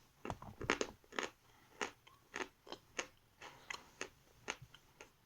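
A person chewing a dried piece of red edible chalk, with short, light crunches about twice a second that thin out toward the end. The chalk crunches only a little and crumbles easily, a soft, brittle consistency.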